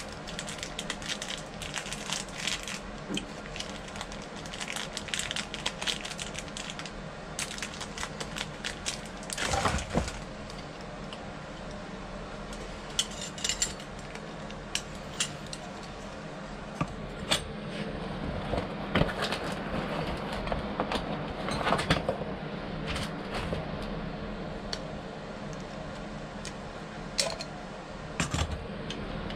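Parts of a storeroom-function knob lockset clicking and clinking as they are handled and fitted. The brass chassis, the rosette plate and the steel knob give irregular sharp taps and rattles, a few of them louder knocks.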